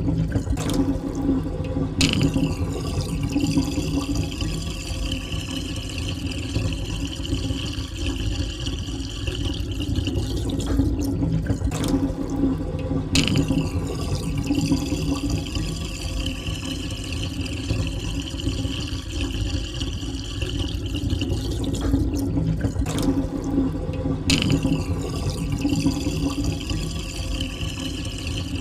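Water draining down a sink, gurgling and sucking steadily. A hissing, whistle-like tone in the drain fades and returns about every eleven seconds, as the same stretch of sound repeats.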